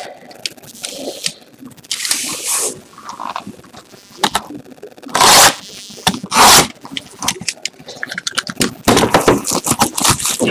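Plastic shrink-wrap being torn and crinkled off a sealed trading card box, with scraping and crackling from the handling. Two sharp rips stand out, about five and a half and six and a half seconds in.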